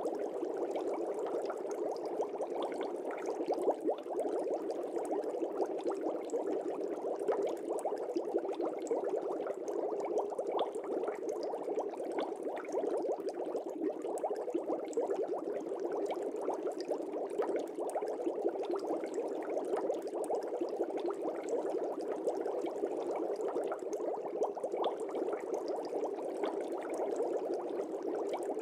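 Air bubbles streaming up through fish-tank water: a steady, dense bubbling made of many small rapid pops, without let-up.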